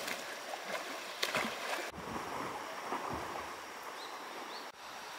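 Water splashing from a swimmer's arm strokes in a river, a few separate splashes over the steady rush of flowing water.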